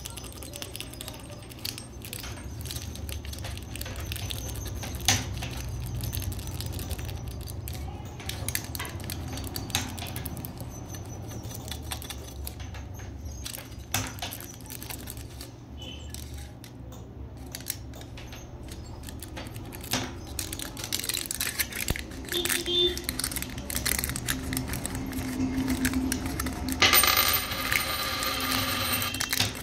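Aluminium foil crinkling and crackling in small clicks as fingers press and rub it over a coin, over a steady low hum. Near the end there is a louder burst of crumpling as the foil is pulled off the coin.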